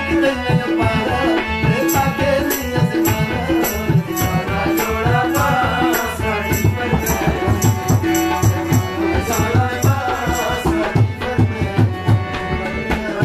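Live qawwali music: a harmonium and a hand drum keep up a steady, fast rhythm, with a man's voice singing over them in the middle.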